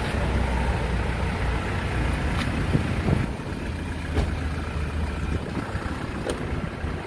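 A motor vehicle engine running at idle amid street traffic, a low steady rumble. A few short sharp knocks and clicks come through in the middle.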